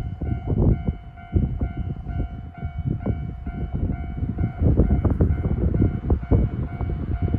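Gusty wind buffeting the microphone in uneven rumbles, over a steady high electronic tone with overtones. No train passes.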